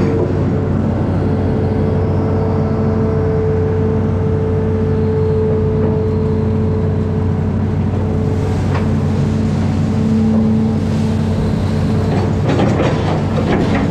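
Amphibious excavator's diesel engine running steadily under load, a low drone with a steady whine over it. A few clanks come near the end.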